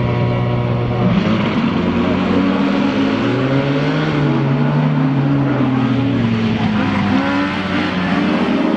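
Several racing car engines running together at high revs, their pitches rising and falling as they rev and shift, the cars not yet in sight.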